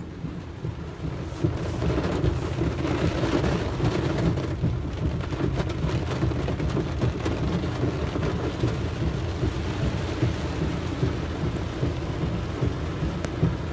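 Heavy rain pelting a car's roof and windshield, heard from inside the car: a dense, steady patter of many small drop hits over a low rumble.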